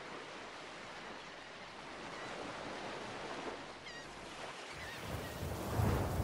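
Steady sound of ocean surf with a few short bird chirps over it. About five seconds in, a louder, deeper rumbling noise sets in.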